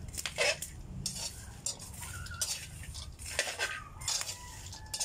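Metal spoon stirring and scraping cacao beans around a wok, the dry beans rattling against the pan in irregular strokes. The beans are being dry-roasted and are almost black.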